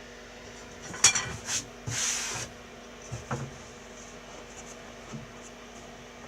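Handling noises of hand work: a sharp clatter about a second in, a short brushing scrape around two seconds, then a couple of light knocks.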